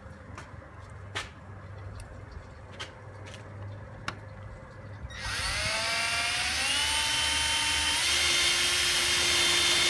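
Cordless drill/driver driving a screw into the wall. It spins up about halfway through with a rising whine, runs steadily with a slight change under load, then stops abruptly. Before it there are a few faint clicks over a low hum.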